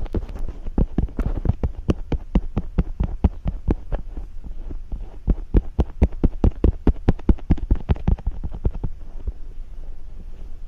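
Fingers slick with cream and oil rubbing and patting an ASMR ear microphone in a behind-the-ear massage: a quick run of soft wet taps, several a second, each with a low thump. The taps come loudest in the middle and thin out near the end.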